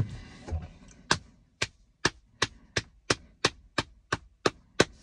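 One person clapping their hands slowly, about eleven single claps that come a little faster toward the end.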